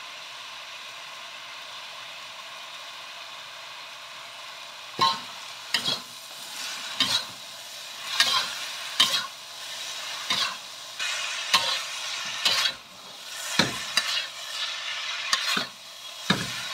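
Shredded young papaya sizzling in a wok, a steady hiss. About five seconds in, a metal spatula starts tossing it, scraping and knocking against the wok again and again over the sizzle.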